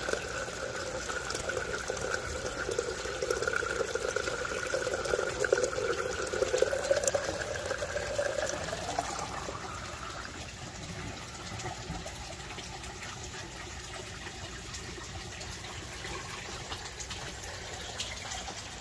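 Water draining into the 1.5-inch U-siphon pipe of an aquaponics flood-and-drain grow bed, with a wavering tone that rises slightly and fades about nine seconds in, leaving a softer, steady water noise.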